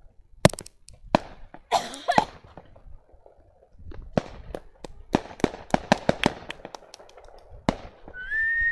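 Fireworks going off. There is a sharp bang about half a second in and another a moment later, a burst of crackling around two seconds, then a quick run of crackling pops for several seconds. A high, steady whistle comes in near the end.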